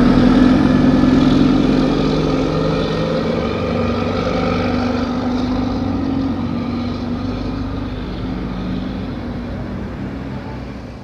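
Orion VII CNG transit bus engine running with a steady note, heard from outside the bus; it fades out near the end.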